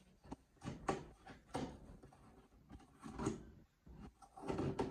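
Scissors cutting through packing tape on a cardboard shipping box, with the box scraping and rustling under the hands. A handful of short, uneven scrapes; the longest and loudest comes near the end.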